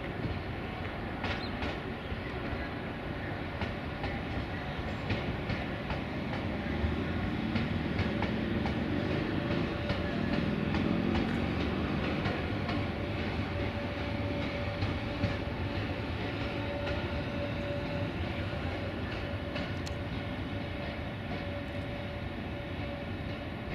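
Softronic Hyperion electric multiple unit rolling through the station, its wheels ticking over the rail joints. A steady whine holds through the second half.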